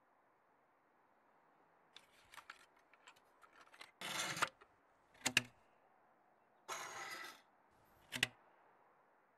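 Sound effects for parts snapping together: a run of small ticks, then a short whoosh followed by a sharp double click. A second whoosh is followed by one more sharp click near the end.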